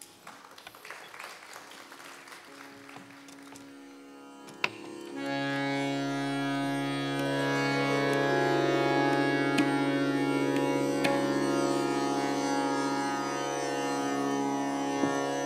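Tanpura drone strings plucked faintly; about five seconds in a harmonium comes in holding a steady low drone note, with a higher note joining a few seconds later.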